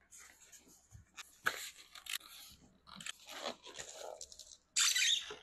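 Packaging being handled as the fan is unboxed: irregular crinkling and crackling, with a louder rustle near the end.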